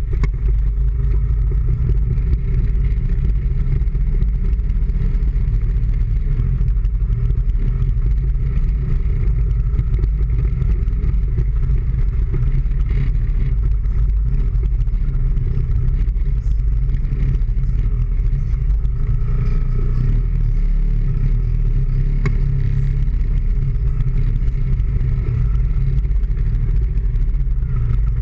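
Small motorcycle engine running steadily while riding through city traffic, with a heavy, constant low rumble.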